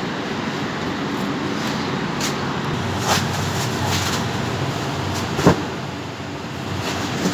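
Steady hum of refrigeration fans and machinery in a frozen-fish cold store, with a few short knocks, the sharpest about five and a half seconds in.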